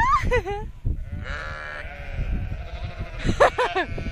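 Sheep bleating three times in wavering calls: one at the start, a longer held one about a second in, and another near the end.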